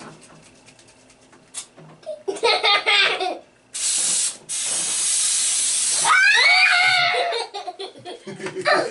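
Silly string aerosol can spraying with a loud hiss, starting about a third of the way in, breaking off for a moment, then running on for a couple of seconds more. Laughter rises over the end of the spray.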